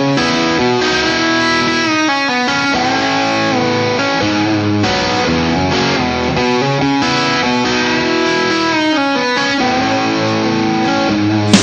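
Telecaster-style electric guitar playing the rock song's opening chord riff alone, the chords changing every second or so. The drums crash in at the very end.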